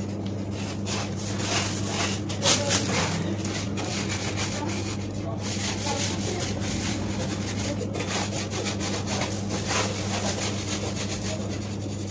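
A steady low electrical hum with irregular rubbing and rustling noises over it.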